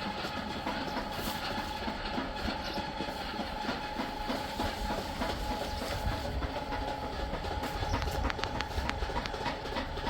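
A vehicle running with a steady rumble and rattle, and a run of sharp clicks about eight seconds in.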